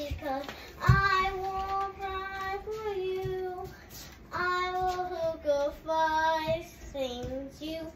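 A child singing a made-up song without accompaniment, in two long phrases of drawn-out, sliding notes with a short break about four seconds in.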